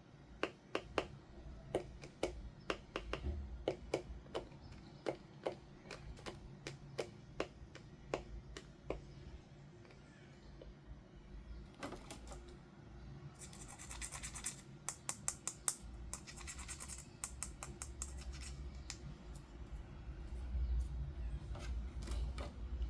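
Small plastic toy pieces and packaging being handled: a run of light separate clicks and taps. In the middle comes a stretch of rapid scratchy clicking, then a few more taps near the end.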